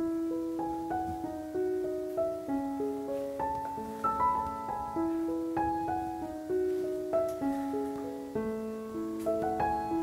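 Background piano music: a gentle melody of single notes over held lower notes, about two or three notes a second.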